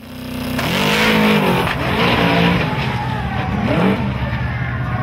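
Drag-racing Camaro's engine revving hard, fading in at the start. Its pitch climbs and drops in several surges, then settles into a steadier note.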